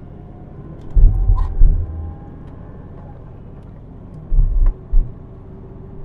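Car on the move, heard from inside: a steady low road and engine hum with a faint engine tone slowly rising. There are two spells of heavy low thumps, about a second in and again past four seconds.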